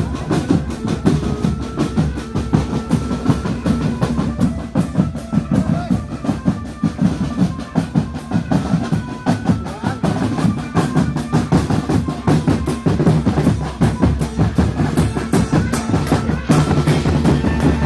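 Marching drum band playing on the move: snare drums rattling in fast rolls over steady bass drum beats, with a melody of held higher notes above the drumming.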